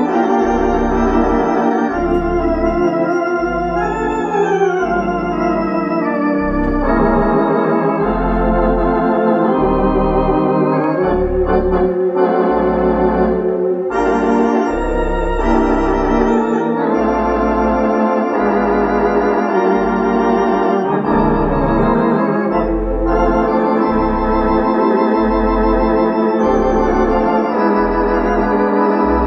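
Rodgers 333 Olympic three-manual theatre organ playing a tune: sustained chords with a wavering tremulant over a moving melody, and pedal bass notes sounding in a steady beat underneath.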